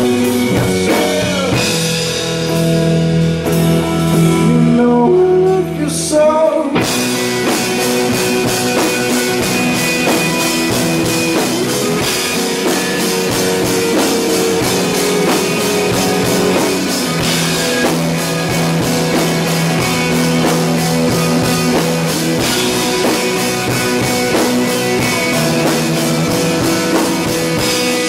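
Rock band playing with guitar, drums and singing. The opening is sparser, with held notes, and the full band with drums comes in about seven seconds in.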